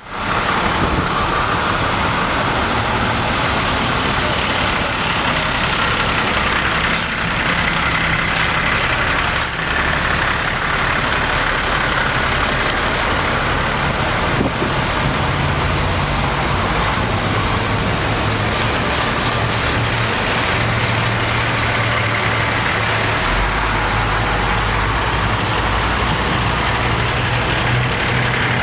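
Heavy utility and tree-trimming truck engines running in a steady drone, with a sharp click about nine seconds in and a deeper engine note joining in near the end.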